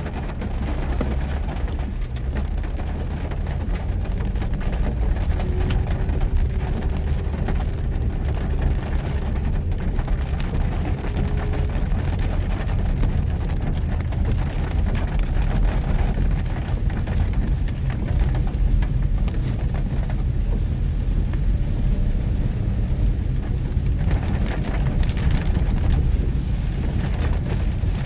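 Mitsubishi Pajero Mini kei 4x4 driving in heavy rain: a steady low engine and tyre rumble mixed with the hiss and patter of rain and water on the car.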